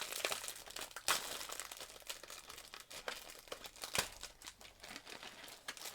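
Plastic snack packaging crinkling and crackling as it is handled and opened, with a couple of sharper clicks about a second in and again near four seconds.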